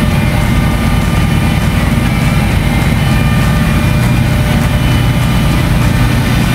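Loud, steady drone of ship's machinery. A low hum grows stronger about four seconds in, just as the start buttons on a hydraulic garbage compactor's control panel are pressed.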